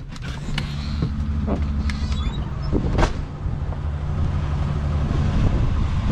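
Motor vehicle engine idling with a steady low hum, with a few sharp knocks and clicks over it, the loudest about three seconds in.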